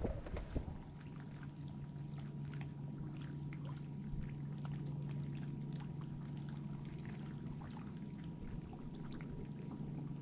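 Small water sounds, a light trickling and lapping with scattered little splashes, against the hull of a bass boat, over a steady low hum.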